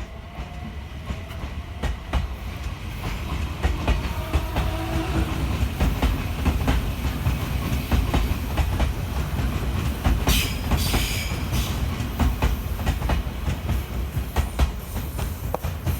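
Odakyu 3000 series electric train pulling away and picking up speed: the motors whine up in pitch at the start, the running sound grows louder, and wheels click over rail joints, with a brief high hiss or squeal about ten seconds in.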